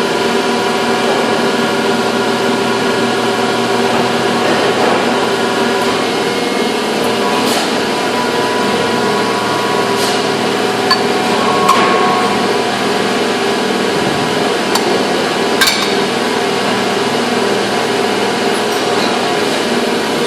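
Steady hum of factory machinery with several fixed tones, with a handful of short, sharp metal knocks and clinks scattered through it from tool work during a mould changeover.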